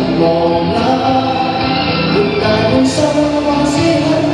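A man singing a Cantonese pop ballad into a handheld microphone, with instrumental accompaniment.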